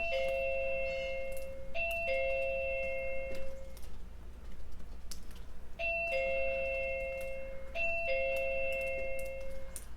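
Avantek wireless doorbell receiver chiming a two-note ding-dong, a higher note falling to a lower one. It rings four times, in two pairs about two seconds apart with a pause of a few seconds between the pairs: two chimes for each press of the button.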